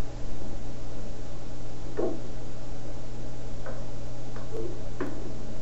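Steady low electrical hum from a TV recorded off its speaker, with a few brief soft sounds about two, three and a half, four and a half, and five seconds in.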